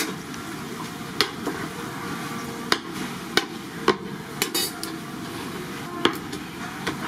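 Sharp, irregular knocks and clacks of kitchen utensils, about seven, over a steady hiss at a fish cake frying counter.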